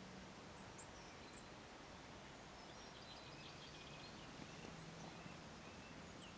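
Faint, high, thin chirps and twittering calls of small woodland birds over a steady hiss. A few single chirps come about a second in, a cluster of calls about three to four seconds in, and more near the end.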